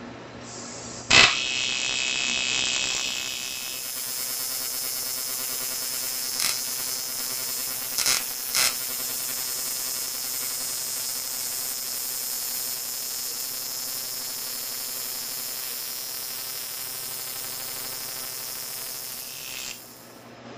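AC TIG welding arc on an aluminium air-conditioning pipe, from a TIG AC/DC 220P welder: the arc strikes with a sharp crack about a second in, then buzzes steadily with a few short crackles, and cuts off near the end.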